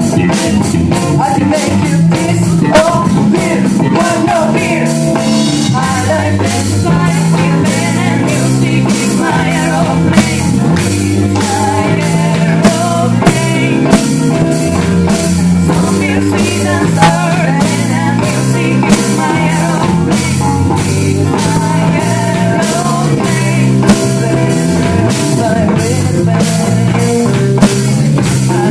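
Rock band playing with electric guitar, bass guitar and drum kit, with a singing voice over a steady beat and a stepping bass line.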